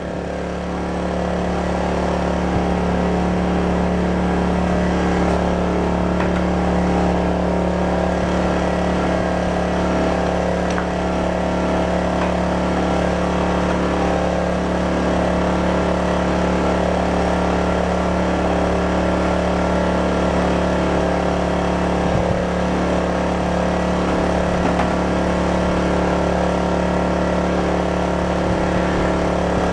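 Sportsman 2200W/1800W inverter generator's small 79cc engine running steadily at constant speed, with economy mode switched off.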